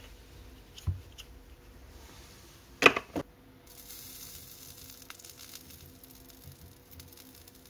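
Handling noise on a workbench as tools are swapped: a soft knock about a second in, then a loud short clatter of knocks near three seconds as the wiring is set down and a small soldering iron is picked up. After that a faint steady hiss carries on.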